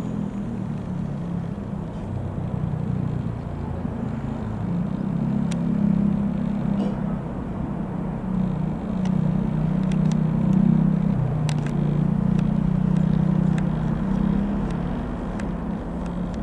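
Van's RV-6A light aircraft's single piston engine and propeller droning as it flies over, growing louder through the middle and easing off toward the end.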